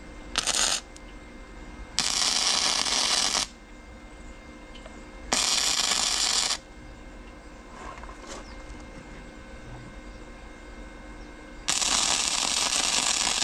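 Flux-core wire-feed welder arc crackling through four tack welds on steel angle iron: a short one near the start, then three lasting about a second and a half each, with pauses between.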